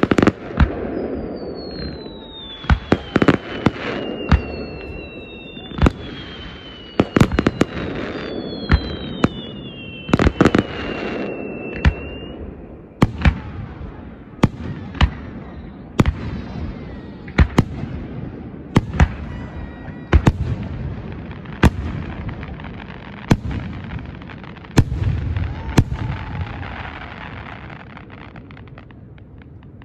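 Aerial fireworks going off: a run of sharp bangs, often about one a second, with several whistles that fall in pitch over the first twelve seconds. The bangs thin out and the rumble dies away near the end.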